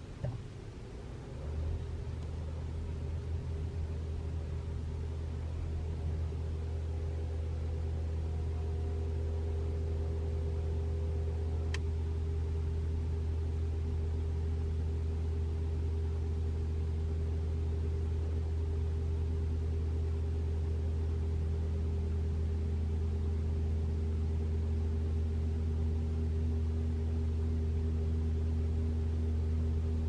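Toyota RAV4 Prime heat pump's electric compressor starting and humming steadily, with a faint buzz of steady tones above the hum; a higher tone joins about two-thirds of the way through. It is the normal running hum, without the heat pump fault noise that was being tested for.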